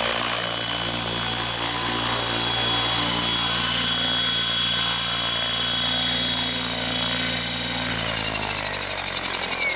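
Align T-Rex 800 radio-controlled helicopter sitting on the ground with its rotors at speed: a steady high whine over the rotor hum. About eight seconds in the power is cut, the whine falls away, and the rotors spin down into a slowing, pulsing blade swish.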